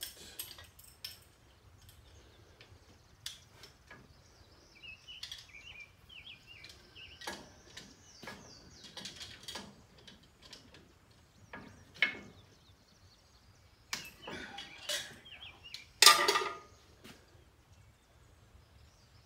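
Intermittent metal clinks and knocks of hand tools and steel fittings on a mini excavator's boom during hydraulic thumb installation. A sharp clank comes about twelve seconds in, and a louder, longer clatter about sixteen seconds in.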